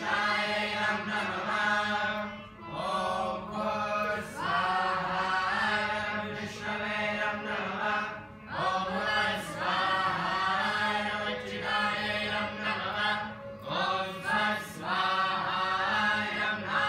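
A group of voices chanting mantras in unison for a Vedic fire sacrifice (yajna), in phrases of a second or two with short pauses for breath.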